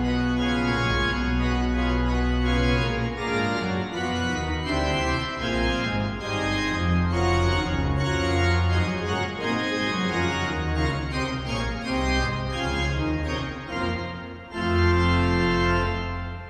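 Hull City Hall's pipe organ (1911 Forster & Andrews, rebuilt by Compton in 1951) playing a loud fanfare in full chords. Deep held pedal notes come first, then moving chords. About fourteen seconds in there is a short break before a big full chord.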